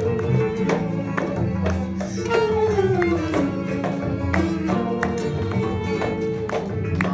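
Live acoustic music: a man sings a Brazilian-style song over two nylon-string guitars strummed in a steady rhythm, with a bowed violin alongside.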